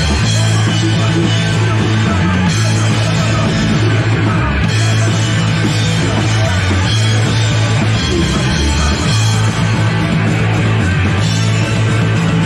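Punk rock band playing live and loud, with guitar, bass and drums.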